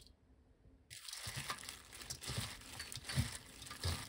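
A hand in a disposable plastic glove tossing seasoned eggplant strips in a stainless-steel bowl, starting about a second in. The glove keeps crinkling, with irregular soft thumps as the eggplant is pressed and turned.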